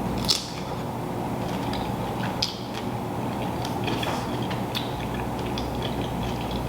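Scattered soft clicks and cracks from handling seafood-boil food, such as shells and a foil or plastic serving bag, over a steady low room hum.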